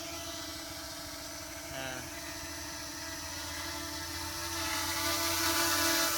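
Small quadcopter drone's brushless motors and propellers running with a steady high whine as it hovers just above the ground, growing louder over the last second or two as the drone and microphone come closer together.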